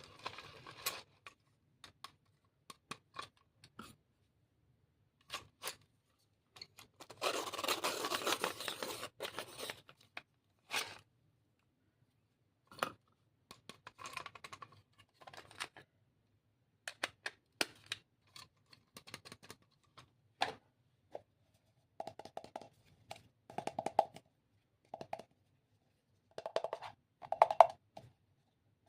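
Stationery and its packaging being handled: scattered clicks and taps, a rustle of packaging lasting about three seconds, starting about seven seconds in, and a few short squeaks near the end.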